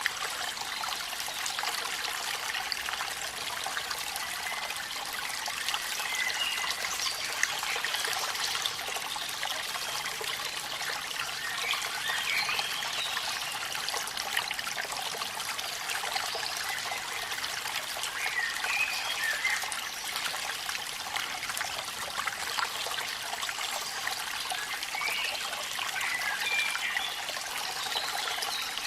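Waterfall and rain: a steady, even rush of falling water. A few brief high calls sound faintly over it now and then.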